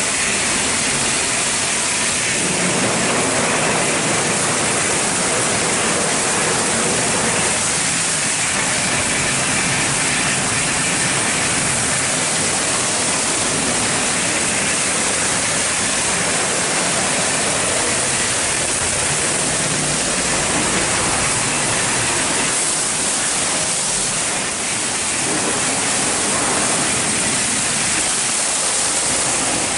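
Mark VII ChoiceWash XT rollover car wash running its wash cycle: water spraying and spinning red cloth brushes scrubbing a car, a steady rushing hiss.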